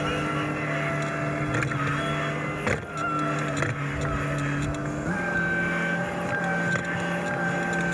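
Cat 304E2 mini excavator's diesel engine running steadily under hydraulic load while the bucket dumps dirt and goes back to dig. The engine note steps up a little about five seconds in.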